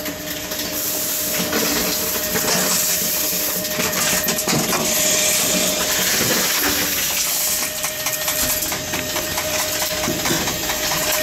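Envipco Ultra 48 reverse vending machine running: a steady whine under a hiss, with irregular clinking and rattling of containers.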